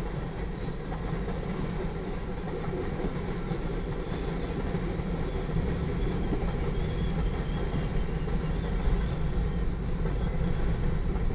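Freight train cars rolling steadily past: a continuous rumble of steel wheels on the rails, growing slightly louder in the second half.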